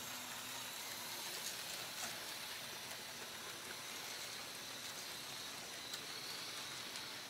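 Model train cars rolling steadily along the track with a steady hissing rumble of wheels on rails, and a few faint clicks along the way.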